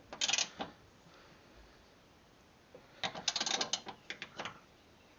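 Ratchet wrench clicking on a nut of a mower-deck spindle bolt: a short run of rapid clicks at the start, then a longer run about three seconds in.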